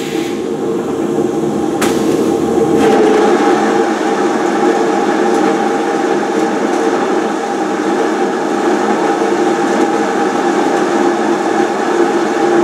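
Haas SL30 big-bore CNC lathe running through its program, its collet chuck spinning and the tool turret moving, with a steady hum at several pitches. There is a single sharp click about two seconds in.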